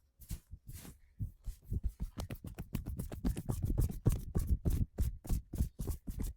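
Rapid percussive hand massage: the masseur's hands striking the body in quick, even slaps. A few slow strikes come first, then about eight a second.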